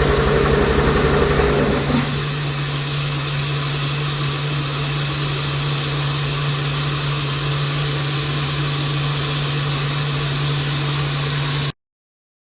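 Bridgeport TC3G CNC vertical milling center running. A louder mid-pitched tone with a low pulsing drops out about two seconds in, leaving a steady low hum and hiss. The sound cuts off suddenly near the end.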